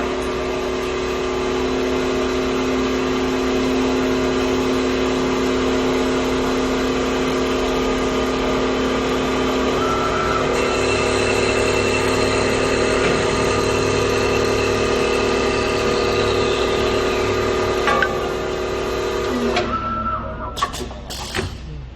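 CNC wood lathe running, a steady motor hum with a high whine. About twenty seconds in it winds down in pitch and stops, followed by a few sharp clattering knocks.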